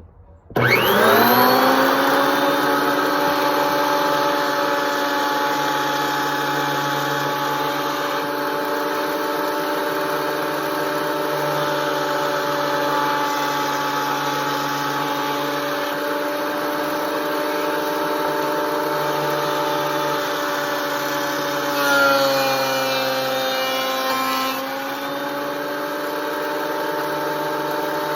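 Craftsman benchtop planer switched on about half a second in: its motor whines up to speed and runs steadily. Around three quarters of the way through, the pitch sags for a couple of seconds and then recovers, as the motor loads while a board feeds through the cutter head.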